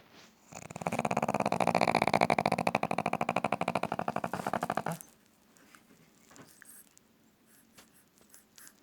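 A dog snoring: one long, fast-fluttering snore that lasts about four seconds and stops suddenly about five seconds in.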